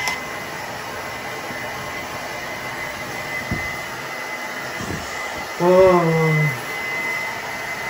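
Handheld hair dryer blowing steadily. About six seconds in, a brief low voice with a falling pitch sounds over it.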